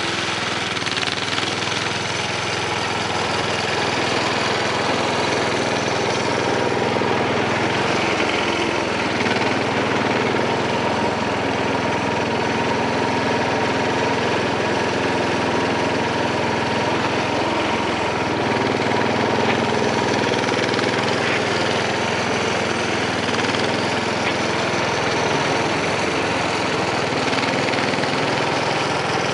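The engine of a 1970 Sears Suburban 12 garden tractor running steadily while the tractor drives and maneuvers with its front loader.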